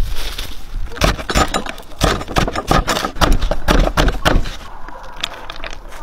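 Green onions rustling as they are pulled from the soil, then a knife chopping them on a wooden cutting board in quick sharp strokes, about four or five a second, which stop about four and a half seconds in.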